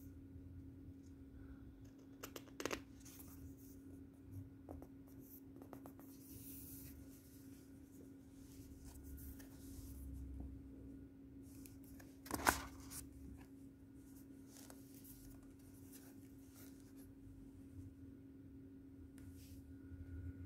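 Faint handling of a cardboard CD digipak and its paper booklet: soft paper rustling and small taps, with a sharper tap about twelve seconds in, over a steady low hum.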